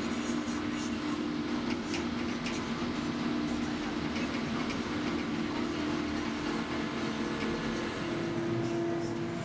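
SENNEBOGEN 880 EQ material handler's power unit and hydraulics running steadily, a constant machine drone with a low hum heard from inside the operator's cab as the machine slews its clamshell grab.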